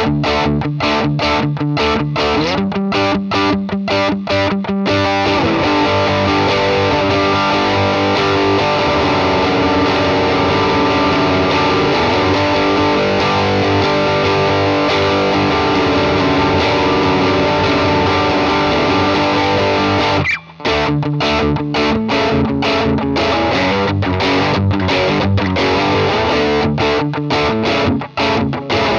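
Electric guitar with a P90 bridge pickup played through a DigiTech Bad Monkey overdrive pedal, giving a distorted tone. Short choppy chords at first, then long ringing chords, a brief stop about twenty seconds in, then choppy chords again.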